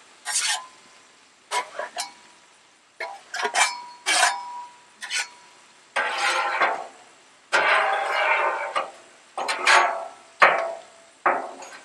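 Metal spatulas scraping and clanking on the steel top of a Blackstone griddle: a dozen or so short scrapes and taps, with two longer scrapes in the middle.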